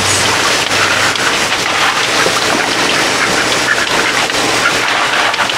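Garden hose spraying water onto muddy ground, a steady hiss and patter.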